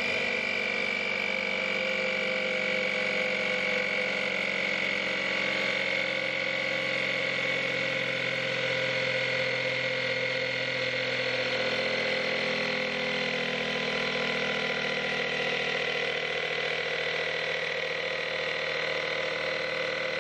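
Portable electric tyre-inflator compressor running steadily, pumping up a coilover air-suspension bag toward about 80 psi so that its sleeve rolls over. Its pitch sinks slightly as the pressure builds.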